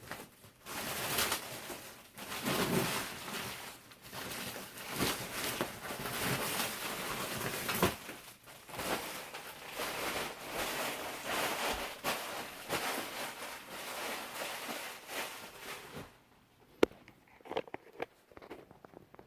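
Packaging being handled during a subwoofer unboxing: irregular rustling and crinkling, then quieter with a few sharp clicks or knocks near the end.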